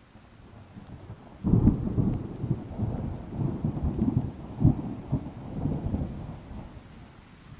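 Thunder rumbling. It breaks in suddenly about a second and a half in, rolls on in several deep surges, and dies away near the end.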